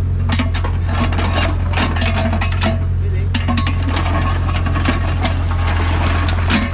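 Doosan DX55WA wheeled excavator working: a steady low diesel engine drone with irregular clanks, knocks and scraping from the bucket and arm as it digs.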